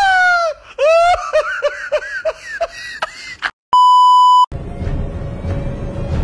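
A high-pitched wailing cry that falls in pitch, then a string of short, falling cries, like sobbing. About three and a half seconds in this cuts to a steady TV test-card beep lasting under a second, followed by eerie background music with a steady low hum.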